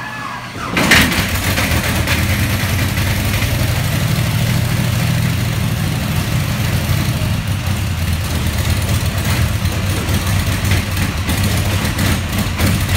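Cessna 195's seven-cylinder radial aircraft engine, mounted in a 1939 Plymouth pickup, starting: it catches with a loud burst about a second in, then keeps running steadily.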